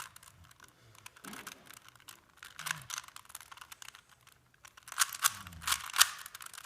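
Plastic Rubik's Cube being twisted by hand, its layers clicking and rattling in quick runs of turns. The clicks are sparse at first and grow louder and denser about five seconds in.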